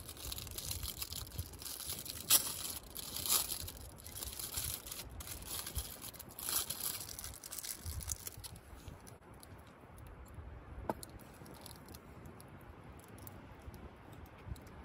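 Plastic food wrapper being crinkled and torn open by hand, with two sharper tears a little over two and three seconds in. After about eight seconds it goes quieter, with only scattered small clicks.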